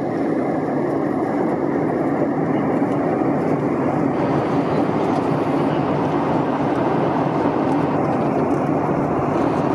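Steady cabin noise of an Airbus A320 in flight: an even roar of airflow and its V2500 jet engines heard from inside the passenger cabin.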